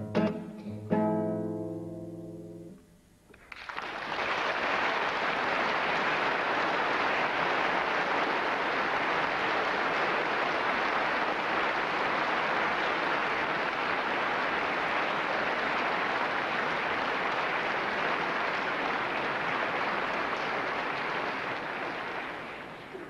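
Classical guitar plays its last notes, which ring and die away in the first few seconds. Then an audience applauds steadily, tapering off near the end.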